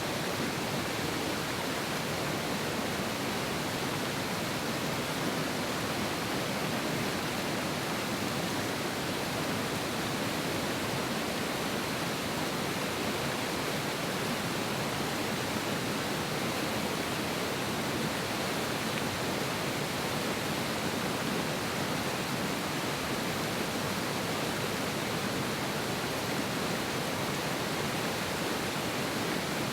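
Fast-flowing mountain river rushing steadily, a constant even sound of running water with no change.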